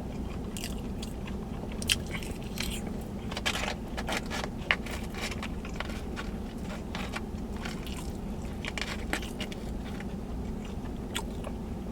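Close-up chewing and biting into sauce-topped sushi fries (French fries with spicy crab meat and scallions), with scattered crunchy clicks over a steady low hum.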